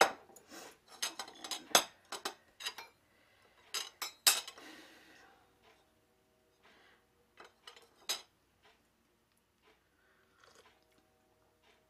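A metal teaspoon clinking against a cup while tea is stirred: irregular sharp clinks, thickest in the first few seconds, with further runs about four seconds and eight seconds in.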